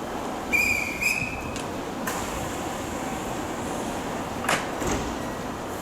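Electric train running through a station with a steady rumble. Two short high-pitched beeps come about half a second in, then a click at about two seconds and a brief hiss at about four and a half seconds.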